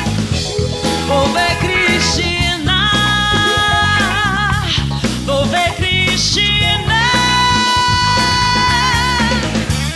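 A band playing an upbeat song, with a steady bass line and long held melodic notes with vibrato over it.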